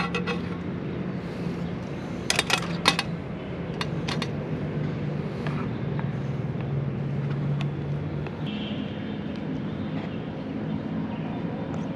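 A metal spatula clinks and scrapes against a frying pan and an aluminium mess tin as curry is served onto rice, with a quick cluster of clinks about two seconds in and a few more soon after. A steady low hum runs underneath.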